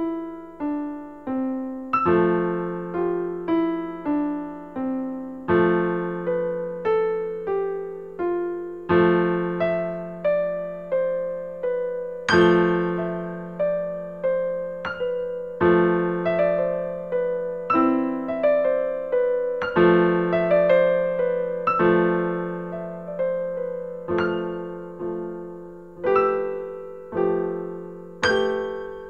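Background solo piano music at an unhurried pace, each struck note ringing and fading, over a low note restruck every few seconds.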